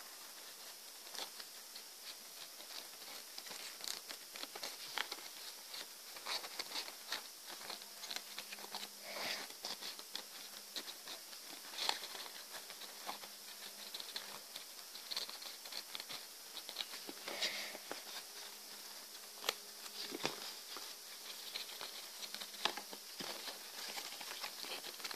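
Origami paper rustling and crinkling under the fingers as it is folded and pressed into a 3D model, with many small, irregular crackles and ticks.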